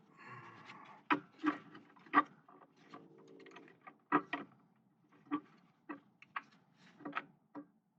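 Irregular metallic clicks and clinks of hand tools against metal: a pipe wrench being set onto the seized brake-hose fitting on the caliper.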